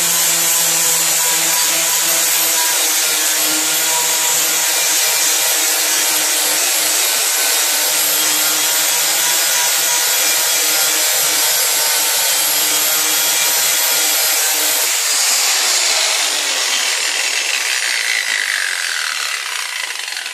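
Angle grinder with a flap disc sanding rust off a car's steel wheel-arch edge, running steadily with a high whine. About fifteen seconds in it is switched off and winds down, its pitch falling over several seconds as it fades.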